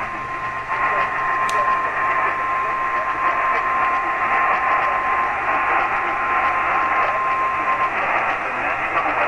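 Emergency alert warning tone heard through a radio receiver: a single steady tone near 1 kHz, the weather-radio alarm tone, over loud hissing static. The tone stops about eight seconds in, leaving only the hiss.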